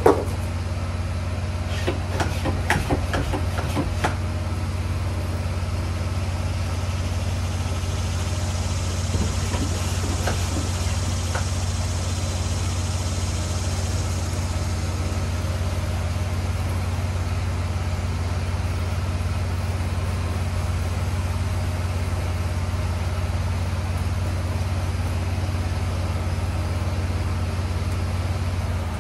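Gas pressure washer engine running steadily. In the first few seconds come knocks and clicks as a hand pump sprayer is handled, and a soft hiss of the sprayer's wand spraying follows a few seconds later.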